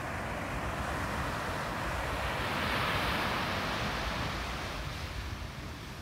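Small waves breaking and washing up a sandy beach: the surf hiss swells to its loudest about halfway through, then fades, over a steady low rumble.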